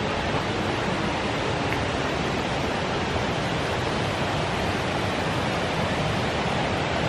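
Fast mountain river rushing over rocks, a steady roar of water running high with snowmelt.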